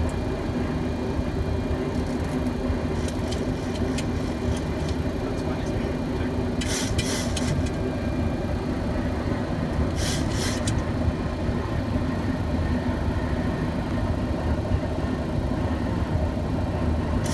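Steady flight-deck noise of a Boeing 737-700 in descent: a constant rush of airflow and engine drone with a steady low hum. Two short bursts of hiss break in about seven and ten seconds in.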